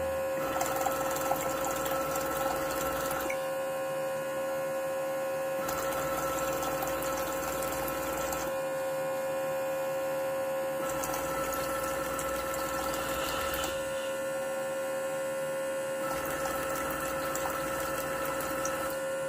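USAC350-Peri peristaltic dispenser pump running steadily with a constant whine while it pumps water into a jar. The sound shifts slightly back and forth every two to three seconds.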